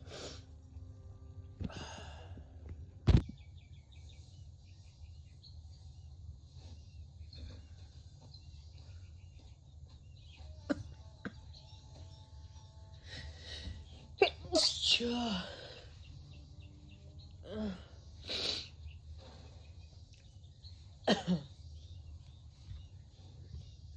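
A person with a cold sneezing again and again, separate sneezes several seconds apart, the loudest about midway, over a steady low hum.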